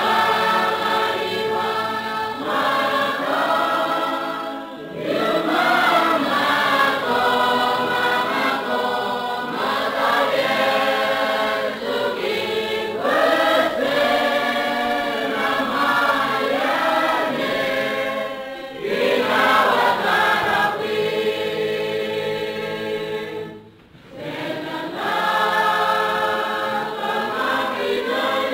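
A choir singing, phrase after phrase, with brief pauses between some phrases.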